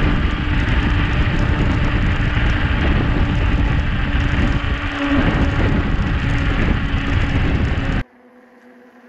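Wind rushing over the microphone and tyre noise from an electric bike riding fast along a paved trail, with a steady hum underneath. The rush cuts off suddenly about eight seconds in, leaving only a faint hum.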